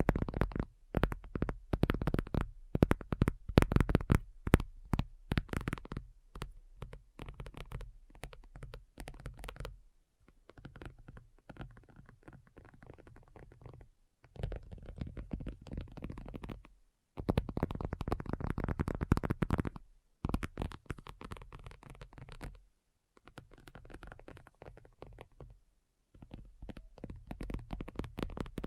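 Fingernails tapping rapidly, many sharp clicks with a dull knocking low end, in stretches of a few seconds broken by short pauses; the taps are loudest and most separate in the first several seconds.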